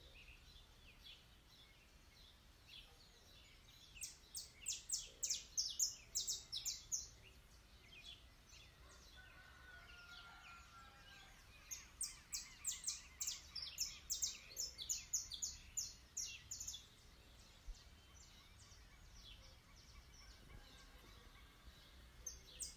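Bird chattering in three bursts of rapid, sharp, high chirps, several notes a second: about four seconds in, around twelve seconds in, and again at the very end. A faint steady hiss lies underneath.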